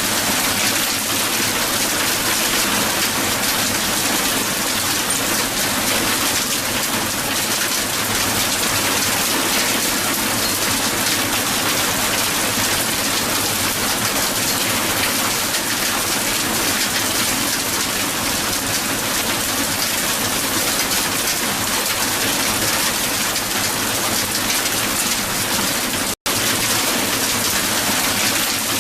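Strong hail falling on the ground: a loud, steady, dense mass of countless small ice impacts. The sound cuts out for a split second about 26 seconds in, then carries on unchanged.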